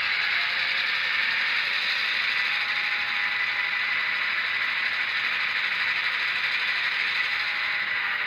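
DCC-equipped model locomotive running, a steady mechanical whir of its motor and gearing with faint thin tones over it.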